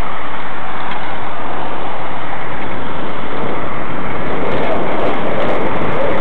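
Steady rush of wind and road noise on a helmet-mounted camera's microphone while riding an electric bike along a road with passing traffic.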